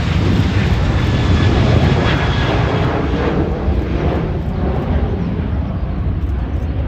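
Twin-engine jet airliner taking off at full thrust: a heavy engine rumble with a faint whine on top, loudest about two seconds in, then fading as the plane climbs away.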